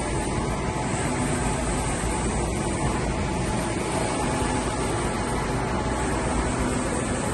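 EFI Vutek GS3250 LX Pro wide-format LED UV inkjet printer running: a steady, even whirring noise with a faint hum.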